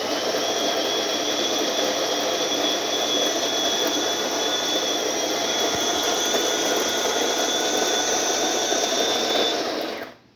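DeLonghi espresso machine running steadily with a constant high whine for about ten seconds, then cutting off near the end. It is being run under pressure to test for a leak.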